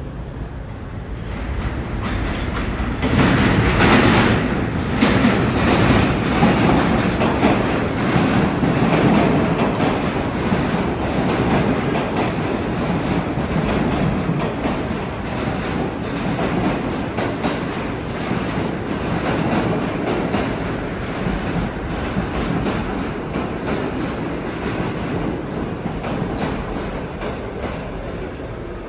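New York City subway train running on the track, building up to its loudest about four seconds in, then slowly fading, with a steady clatter of wheels over rail joints.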